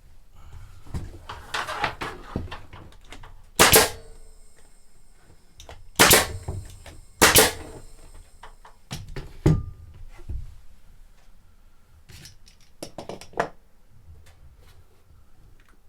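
Several loud, sharp knocks during woodworking, the three loudest about four, six and seven seconds in, with quieter knocks and handling clatter between.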